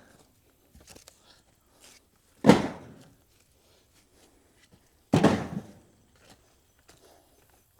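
Two heavy thuds about two and a half seconds apart, each dying away within half a second, with faint scattered knocks and rustling between them.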